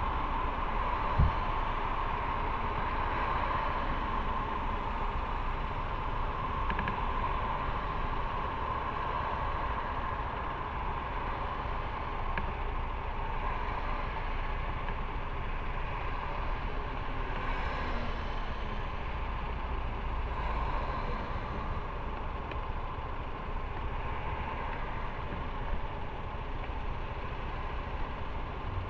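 Steady running noise of a motorcycle ride heard from on the bike: engine and road/wind noise in an even rumble, with one sharp knock about a second in.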